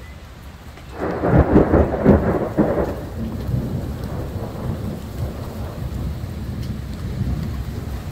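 Thunder: a crackling clap breaks about a second in and rolls on as a long, lower rumble, over the hiss of steady rain.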